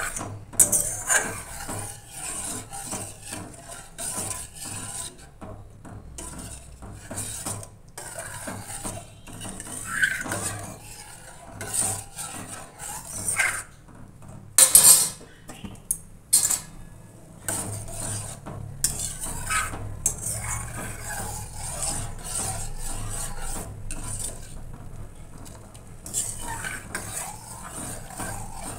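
A steel ladle stirring simmering milk kheer in a stainless-steel saucepan, scraping and clinking against the pan's sides and bottom in uneven strokes. The loudest knocks come about halfway through.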